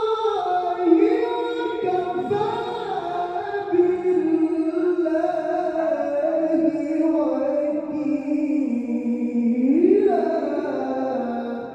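A male Qur'an reciter's voice holding a long, wordless melismatic passage in tilawah style, sliding and turning in pitch, with a rising turn near the end before the note dies away.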